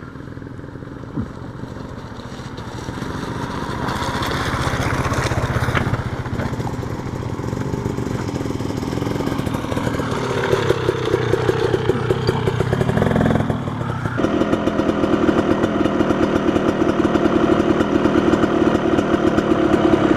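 Off-road motorcycle engine running, revving up and dropping back about ten seconds in, then settling into a steady, pulsing idle for the rest.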